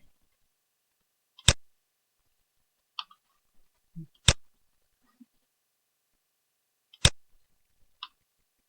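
Computer mouse clicks: three sharp clicks a few seconds apart, with a few fainter clicks between them.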